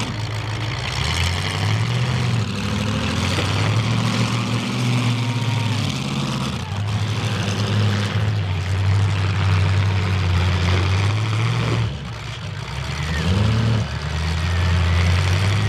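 Engines of several demolition derby cars running and revving, their pitch rising and falling as they push against each other, with a brief drop in loudness about twelve seconds in.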